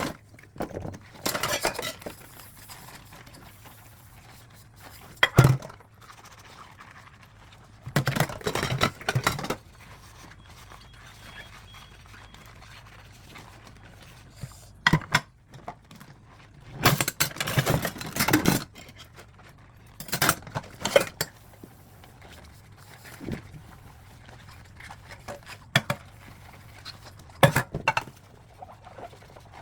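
Dishes and cutlery being washed by hand, clinking and clattering in irregular bursts with quieter stretches between.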